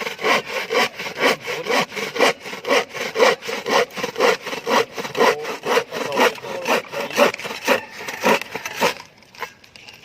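Handsaw cutting through a wooden board, with quick, even back-and-forth strokes at about four a second that stop about nine seconds in.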